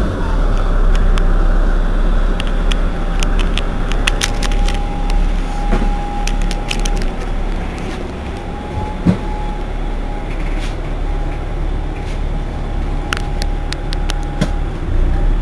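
Irisbus Citelis 18 articulated city bus idling while stopped, its engine giving a steady low rumble with a thin steady whine above it. Scattered light clicks and a single short thump about nine seconds in.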